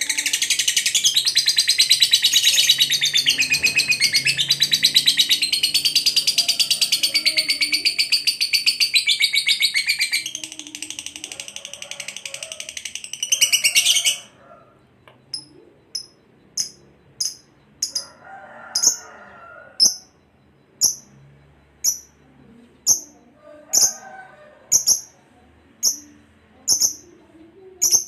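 Lovebird song: a long, rapid, high-pitched trilling chatter that runs unbroken for about fourteen seconds. It softens about ten seconds in, swells once more and then stops abruptly. Short sharp chirps follow, about one a second, with brief soft chatter between them.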